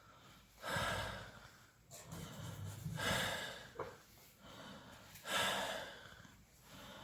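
A man breathing loudly and noisily: three long breaths a couple of seconds apart.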